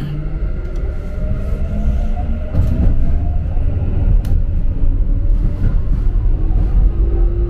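Electric commuter train pulling away and accelerating, heard from inside the front car: a motor whine rising slowly in pitch over the rumble of the wheels on the rails, growing louder, with a few sharp clicks.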